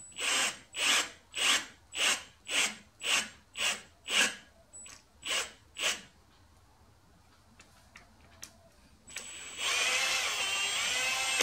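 Milwaukee cordless drill boring into a lathe bed. It runs in short trigger pulses, about two a second for six seconds, then runs steadily for about two seconds near the end.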